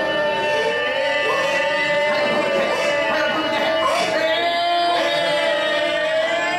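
A girl singing a pop song live into a handheld microphone over loud backing music, her held notes sliding up and down in pitch.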